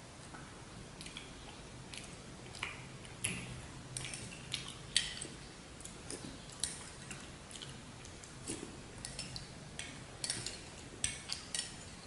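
Close-miked eating sounds: irregular wet mouth clicks and smacks as a dessert is chewed, a dozen or more, coming in little clusters.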